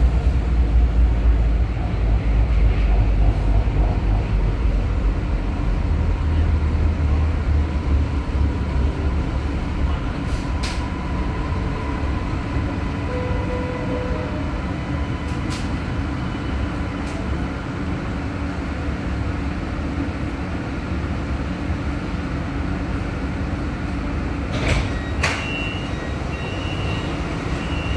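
Low rumble of a Kajang Line MRT car (Siemens Inspiro) heard from inside, easing as the train slows into a station, with a faint steady whine in the middle. Near the end a few clicks as the doors open, then a repeating high beep of the door chime.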